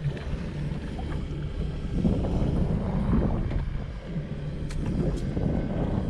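Wind rumbling on the microphone aboard a small fishing boat at sea, a steady low buffeting, with two faint clicks near the end.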